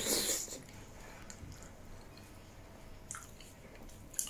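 Close-miked eating by hand: a wet squelch as a mouthful of dhido dipped in nettle soup goes in, then softer chewing with a couple of small mouth clicks.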